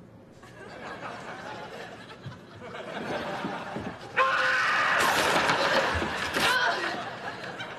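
Studio audience laughter, building gradually, then breaking into much louder laughter about four seconds in and easing off near the end.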